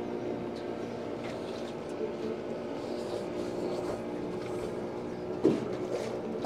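Motorboat engine droning steadily on the stream, with a short louder sound about five and a half seconds in.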